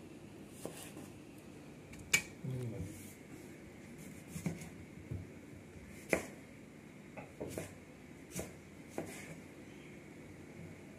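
Kitchen knife cutting through tomatoes and tapping on a plastic chopping board: irregular sharp clicks about one a second, the loudest about two seconds in.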